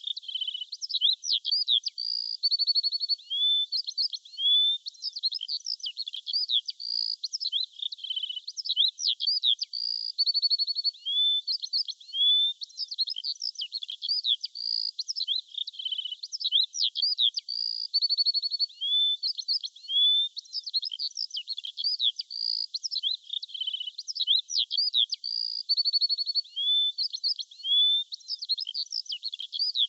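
Small songbirds chirping and trilling without pause, many short high-pitched notes and quick rising and falling whistles overlapping, with the same few phrases recurring every several seconds.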